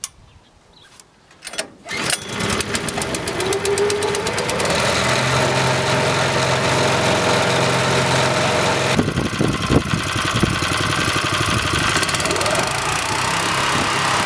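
Small petrol engine on a tow-behind paddock cleaner starting about two seconds in after a brief crank, then running steadily. Its sound changes about nine seconds in.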